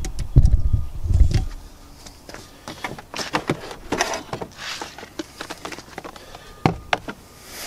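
Plastic air filter housing of a BMW E46 being pulled loose and lifted out of the engine bay. A few heavy thumps come in the first second or so, then scattered clicks, scrapes and rustles of plastic.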